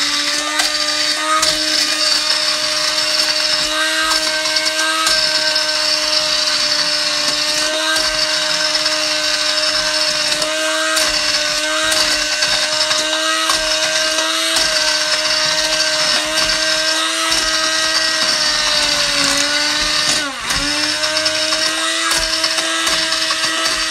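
Hand-held electric stick blender running steadily in a saucepan of boiled strawberries, puréeing them; its motor whine holds one pitch, then sags briefly and recovers near the end.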